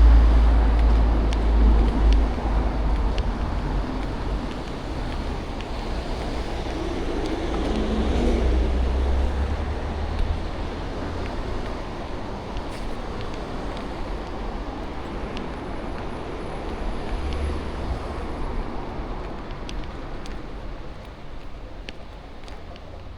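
City street ambience: road traffic passing, with a strong, uneven low wind rumble on the microphone.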